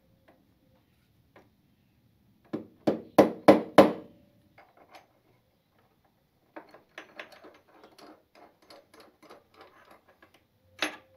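Soft plastic mallet tapping a new steel steering-head bearing outer race into a motorcycle headstock to start it in square: about five quick strikes. Then a run of light metallic clicks as a flat plate and long bolt are fitted over the race as a press, and one more knock near the end.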